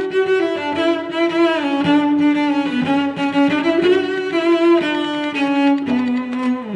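Background music: bowed strings, cello and violin, playing a slow melody in held notes.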